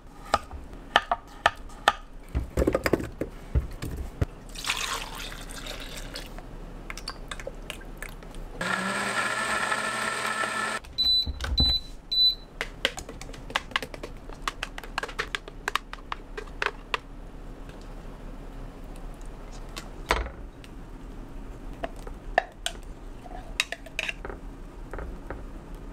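Knife chopping avocado on a wooden cutting board in quick taps, then a short hiss of liquid being poured. A Voar blender runs for about two seconds and gives three short beeps as it stops, followed by a spoon clicking and scraping against the glass blender jar.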